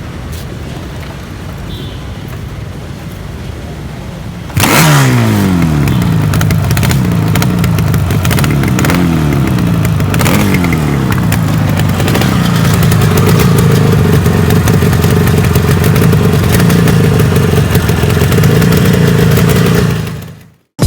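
Yamaha RD350's air-cooled two-stroke parallel-twin running through its exhaust. About four seconds in it comes in loud with a series of revs, each falling back, then it holds steady at higher revs before fading out near the end.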